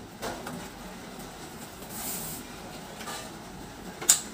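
Window blind headrail being handled and seated in its wall brackets: faint scrapes and rustles, then a single sharp click near the end.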